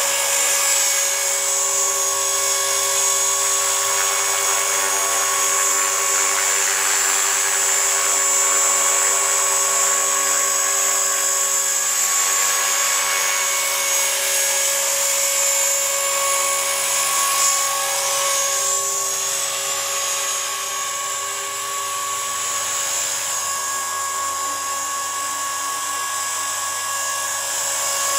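EXI 450 SE electric RC helicopter hovering: a steady high-pitched whine from the motor and gear drive, with the rush of the spinning rotor blades.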